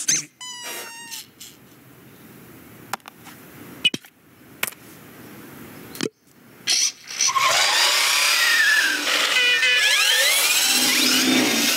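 Cartoon sound effects of toys moving about. First comes a short falling squeal and a few scattered clicks and knocks, then from about seven seconds in a dense jumble of squeaks, rattles and gliding squeals as many toys move at once.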